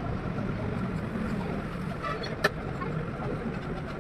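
Steady low workshop rumble, with one sharp click about halfway through as metal parts are handled at a truck gearbox's clutch release bearing.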